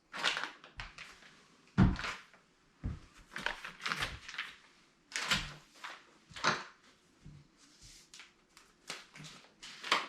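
Cardboard TV box and its packing being handled: a series of knocks, thuds and rustles at irregular intervals, the loudest thud about two seconds in.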